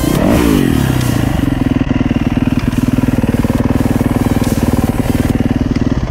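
Dirt bike engine running, its revs dropping about half a second in and then holding steady.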